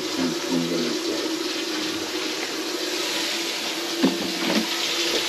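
Water running steadily from the kitchen faucet and draining down the sink's drain line, which has just been cleared of a grease clog. A couple of light knocks come about four seconds in.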